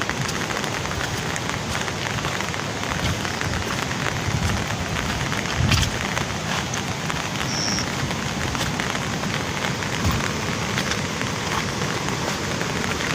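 Heavy, torrential rain falling steadily, full of small drop clicks, with a low thump about six seconds in and another near ten seconds.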